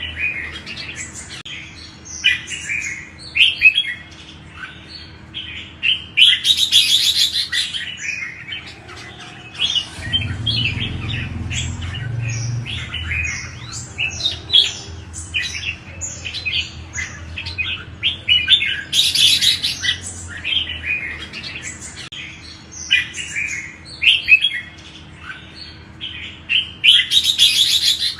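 Red-whiskered bulbuls singing: a quick, continuous run of short chirping phrases, broken by harsher, denser bursts of chatter three times.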